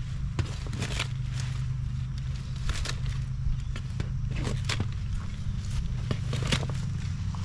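Irregular crunching and crackling of dry plant matter and mulch being trampled and disturbed in a garden bed, over a steady low rumble.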